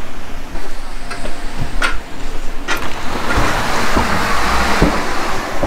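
Steady outdoor background noise, with a few sharp clicks about a second apart. Then a glass entrance door is pulled open by its handle, with a swell of rushing noise as it opens.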